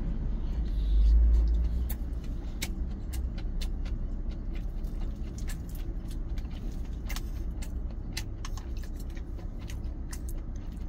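Close-up chewing of a mouthful of rice and a whole pickled green chili pepper, with sharp, irregular crunches and clicks, over a steady low engine hum.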